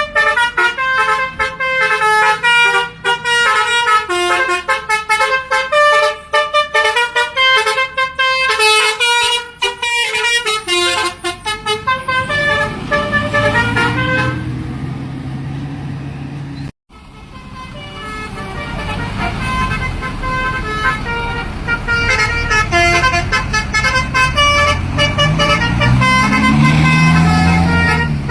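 Indonesian bus 'telolet basuri' multi-tone air horn playing a fast melody of short notes. The tune breaks off about twelve seconds in, giving way to a low engine note that rises and falls. After a sudden cut the horn tune starts again, with the engine note rising and falling once more near the end.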